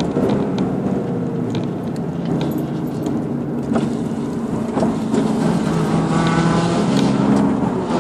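Car engine heard from inside the cabin while lapping a race track. Its note falls as the throttle is lifted in the first second, then climbs under acceleration from about six seconds in and drops off just before the end, with scattered light clicks.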